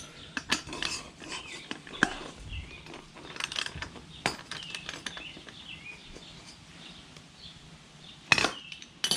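Scattered metallic clinks and taps of a wrench working a nut and bolt on the wheel-mount bracket as it is tightened, with a sharp, louder clank near the end.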